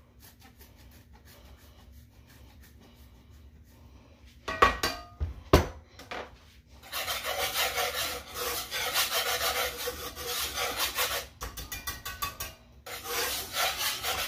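Two sharp knocks, then a block of Parmesan cheese rubbed against a handheld grater over a pan: a dry rasping that runs for several seconds, stops briefly, and starts again near the end.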